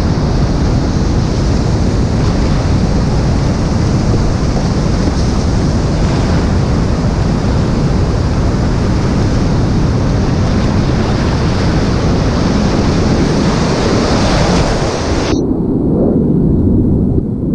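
Whitewater rushing loudly and steadily, with wind buffeting the microphone. About 15 seconds in, the sound abruptly turns muffled and dull for a couple of seconds before clearing again.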